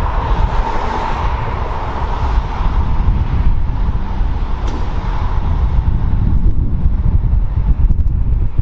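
Fire truck's engine running with a steady low rumble, and a hiss that fades away over the first few seconds.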